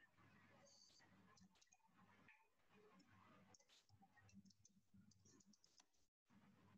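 Near silence with faint, scattered clicks of typing on a computer keyboard.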